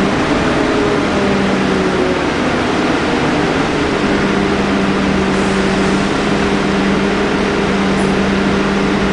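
Scania K310UD double-decker bus's DC9 five-cylinder diesel engine running, heard from inside the lower deck as a steady low drone with a constant hum.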